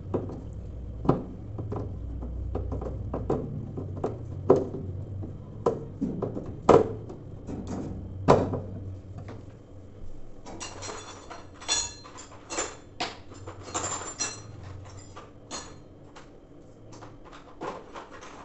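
Scattered knocks and clicks of washing-machine parts and screws being handled by hand during reassembly, with a run of light metallic clinks past the middle.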